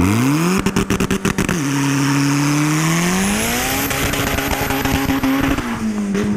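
Acura Integra's engine revving hard during a burnout. The revs climb with a rapid crackle of clicks over the first second or two, hold high, climb again, then begin to fall near the end.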